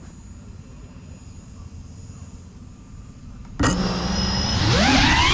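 Faint low rumble, then about three and a half seconds in the GEPRC CineLog35 cinewhoop's brushless motors spin up suddenly with a loud whine. Near the end the whine rises steeply in pitch as the throttle is opened for takeoff.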